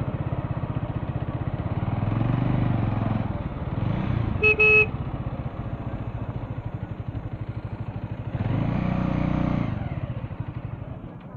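Motorcycle engine running under way, its note picking up and easing off twice, with a short double beep of a vehicle horn about four and a half seconds in.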